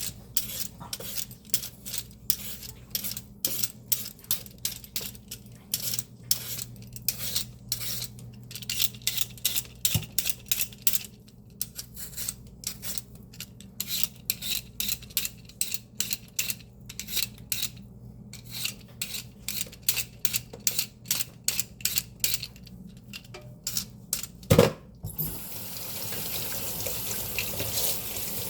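Greens being chopped: quick runs of sharp chopping strokes, several a second, over the steady hum of a fan. A single heavy knock comes near the end, then a kitchen tap starts running.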